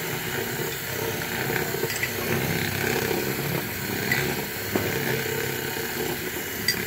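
Power drill running steadily, mixing a glue and borax-water slime in a bowl, with a few small clicks about four and five seconds in and near the end.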